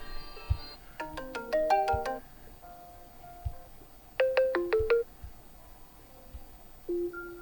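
Default ringtones of a OnePlus Nord N30 previewed one after another: four short melodic phrases of clear chiming tones, each cut off after about a second before the next begins.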